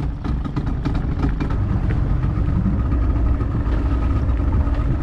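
Speedboat engine running at a steady low drone, with water and wind noise over it.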